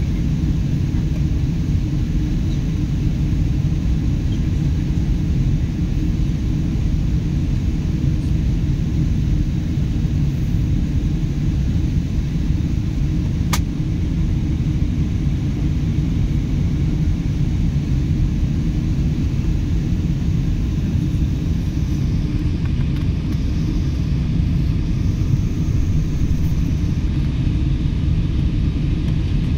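Steady low rumble of a Boeing 747-8 in flight on approach, heard inside the passenger cabin: its GEnx engines and the rush of air over the airframe. A single brief click about halfway through.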